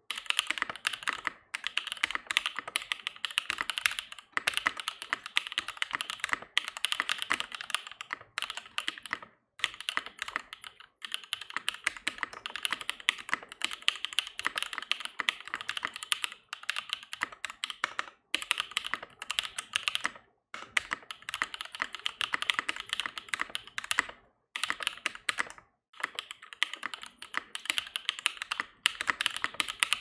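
Fast, continuous typing on an Iron 180 custom mechanical keyboard with lubed switches (UHMWPE stems, Milky Gateron top housings, Tangerine bottom housings), foam-dampened and with lubed screw-in stabilizers. Dense runs of keystrokes are broken every few seconds by short pauses.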